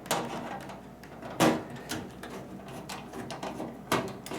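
Sharp metallic knocks as knockouts are worked off the sheet-metal back of a GE over-the-range microwave: four separate hits, the loudest about a second and a half in.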